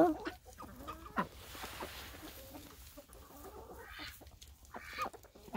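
A flock of chickens clucking quietly while feeding, with short scattered calls.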